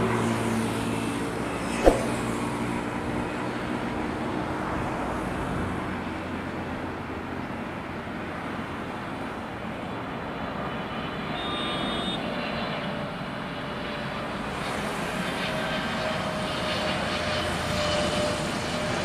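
Twin-engine wide-body jet airliner, a Boeing 777, passing low on final approach with its gear down: a steady jet-engine noise. A single sharp knock about two seconds in.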